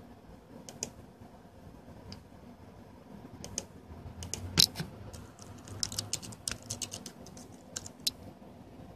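Typing on a computer keyboard: irregular keystrokes, a few scattered at first, then a quick run of keys from about three and a half seconds in until about eight seconds.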